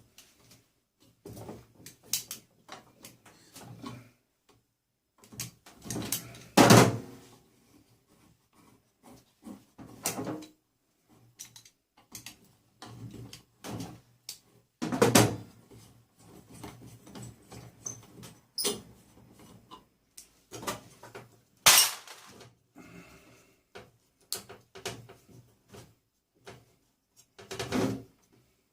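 Irregular knocks, clinks and rattles of metal parts being pulled apart and handled while stripping a disco light unit for scrap, with a few louder knocks spread through.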